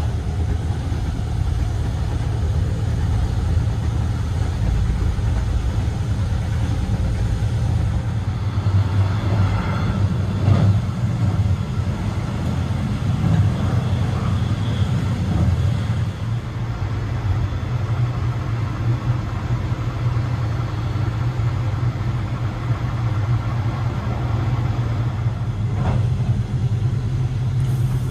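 Steady low rumble of a moving passenger train, heard inside a couchette car as it runs along the track, with an occasional knock.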